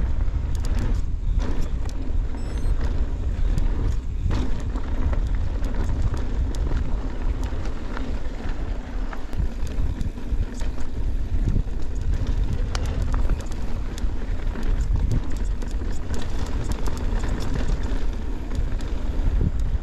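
Wind buffeting a GoPro's microphone while riding a mountain bike, a steady heavy rumble. Over it comes a scatter of small clicks and rattles from the bike and its tyres on a dirt trail.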